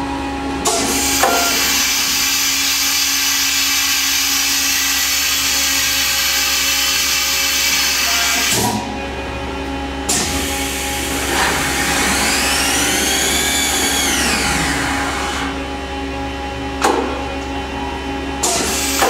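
Fadal VMC 15XT vertical machining center running a program with its spindle at about 6,500 RPM: a steady machine hum under long stretches of loud hissing. About halfway through, a whine rises and falls again in pitch over a few seconds, and there are a few sharp clicks.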